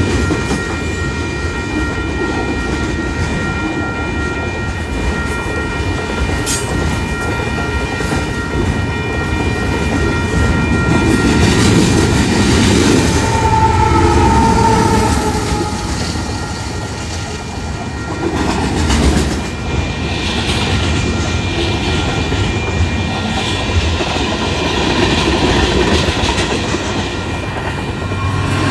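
Freight train rolling past close by: a steady rumble of steel wheels on rail with clickety-clack over the rail joints, and several steady high ringing tones above it. A mid-train diesel locomotive goes by about halfway through, where the sound is loudest.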